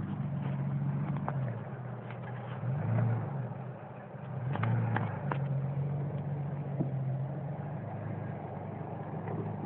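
Jeep engine running while off-roading, with two brief revs, about three seconds in and again about five seconds in.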